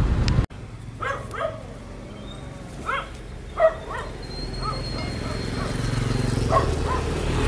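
A dog barking repeatedly, about eight short barks spread through, over a low steady hum. At the very start, motorcycle road noise cuts off abruptly.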